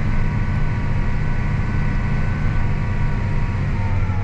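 Tractor engine running steadily under load while pulling a ripper through the soil: a steady low drone with a faint whine held over it.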